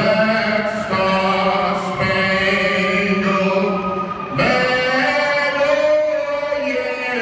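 An anthem being sung in long, drawn-out notes that change pitch every second or two.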